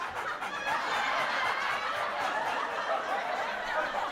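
Sitcom laugh track: many people laughing and chuckling together at an even level.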